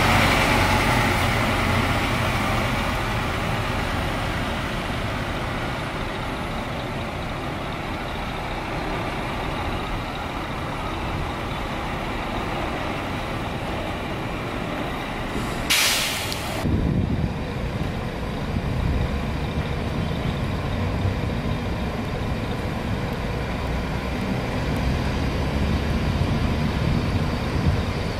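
Diesel coach buses moving slowly: one engine's rumble fades as the coach pulls away, a sharp air-brake hiss of about a second comes just past the middle, and a low engine rumble builds as another coach approaches.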